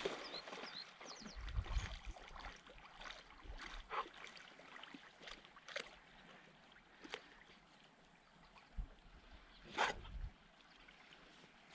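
Faint splashing and gurgling of water as a Weimaraner swims out in flooded river water on a long leash, with a few soft, scattered splashes, the most distinct near the end.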